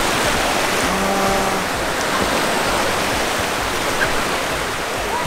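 Shallow surf washing in over the sand at the water's edge: a steady rush of breaking foam.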